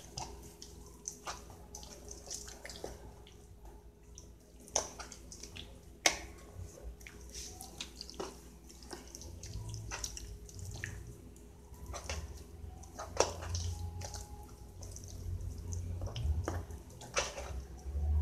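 Hands rubbing a wet homemade seasoning paste into a raw beef shoulder roast: irregular short wet smacks and clicks over a faint low hum.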